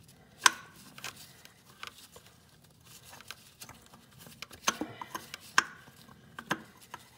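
A handful of sharp metal clicks and clinks as an oil filter adapter housing and its threaded nipple are worked by hand against the engine block, trying to get the threads to bite. The loudest click comes about half a second in.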